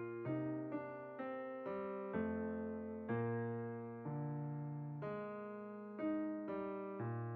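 Soft background piano music: notes and chords struck every half second to a second, each left to ring and fade.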